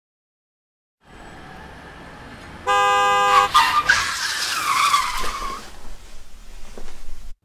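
A car horn blares for under a second, then tyres screech in a long falling squeal as a car skids, over faint background noise. The sound fades and cuts off suddenly.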